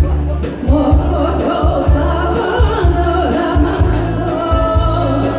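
A singer performing a Korean trot song over a backing track with a steady bass beat.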